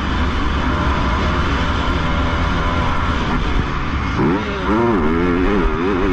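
Motocross dirt bike engine heard from the rider's helmet over a steady rushing noise. It runs at part throttle for the first four seconds, then revs up sharply as the bike accelerates, its pitch rising and dipping with the throttle and gear changes.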